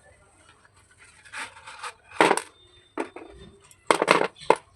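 Slate pencils being handled, making a series of short scratching, rustling noises, the loudest about two seconds in and a cluster around four seconds.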